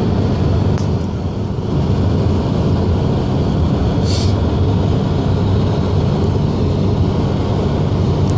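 Steady low drone of road and engine noise heard inside a moving car, with a brief hiss about four seconds in.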